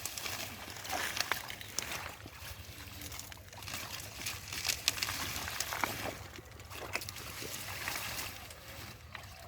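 Muddy shallow paddy-field water sloshing and splashing in irregular bursts as hands grope through it.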